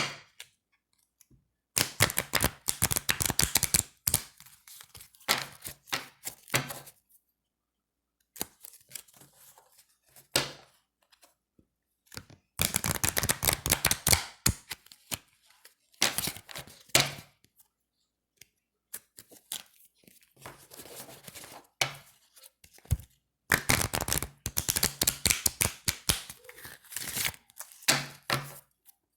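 A deck of thin, slick playing cards being shuffled: three fast fluttering riffles of about two seconds each, with softer rustling and tapping of the cards being handled between them.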